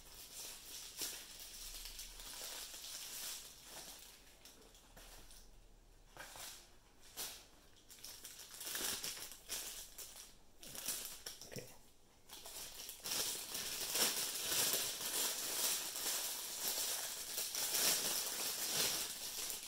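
Plastic packaging crinkling and rustling in the hands: bubble wrap and then a thin plastic bag being pulled off a camera lens. The crackling is irregular and gets louder in the last several seconds.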